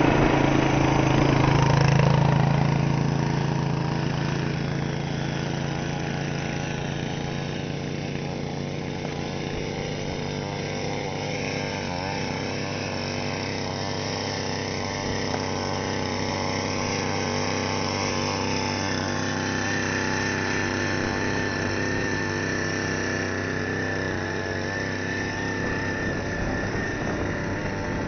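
Small engine of a walk-behind machine working artificial turf, running steadily with a low hum. A faint high whine joins about two-thirds of the way through.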